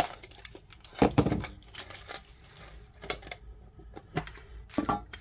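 Scattered clicks and knocks of metal collector tins and their contents (coins, cards, packs) being handled, with a louder cluster about a second in and more near the end.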